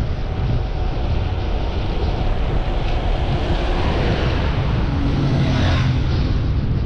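Heavy wind rumble on the microphone, with a motor vehicle's engine running underneath that grows louder about five seconds in.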